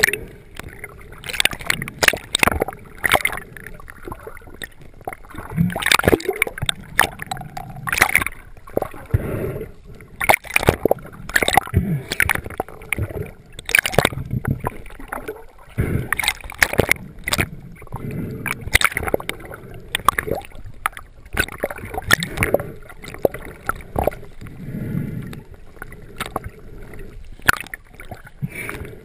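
Water splashing and gurgling close to the microphone, in irregular sharp splashes over a churning rumble.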